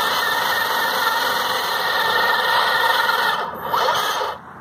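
1/10-scale RC truck's motor and drivetrain whining at high revs while the truck stays put. It dips, rises in pitch again, and cuts off near the end: the broken driveline lets the motor spin without moving the truck.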